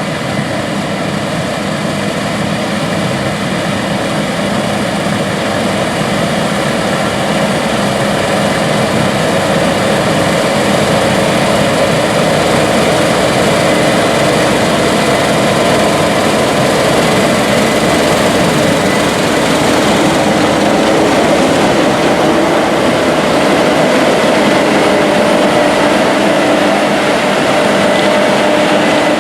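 Case IH 9250 Axial-Flow combine running under load while harvesting wheat: a steady, heavy machine drone with several held tones, growing a little louder over the first ten seconds.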